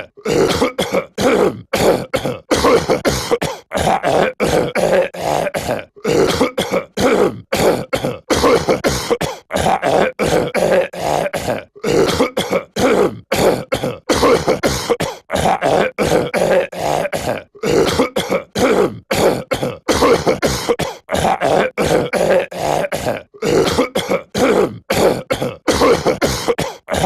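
A cartoon character's voice clearing his throat and coughing over and over, in short rasping bursts a couple of times a second with brief gaps between.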